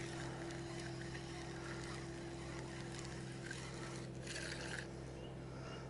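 A boat engine running steadily as a faint low drone, with light water noise and a brief hiss about four seconds in.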